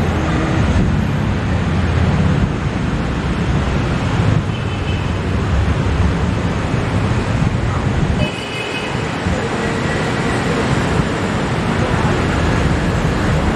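Road traffic on a busy city street: a steady rumble of passing cars and motor scooters.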